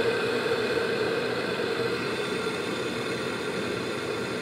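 Water heating to the boil in a Felix Klasik electric teapot: a steady rumbling hiss from the bubbling water.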